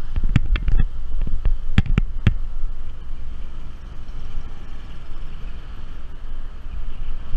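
A car driving, heard from a bonnet-mounted camera: a steady low rumble of road and wind noise on the microphone, with several sharp knocks in the first couple of seconds.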